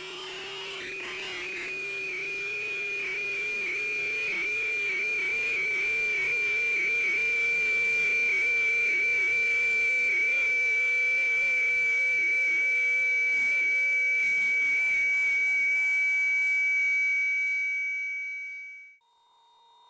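Synthetic tinnitus-masking tones: several steady tones sounding together, from very high to mid-pitched, with a slight wavering. They fade out near the end and give way to a different set of tones.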